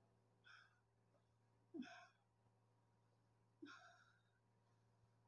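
Near silence broken by three faint, short sighing breaths, about two seconds apart, over a low steady room hum.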